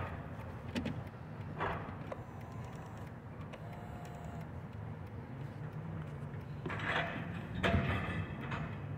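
A car's engine and road hum, low and steady, heard from inside the cabin, with a few short knocks or rustles about two seconds in and again near the end.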